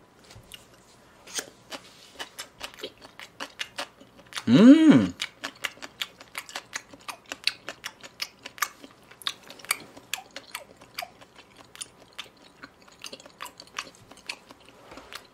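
Close-up mouth sounds of a person chewing raw beef sashimi: quick, wet clicking chews that keep going. About four and a half seconds in comes a short hummed "mmm" that rises and falls in pitch.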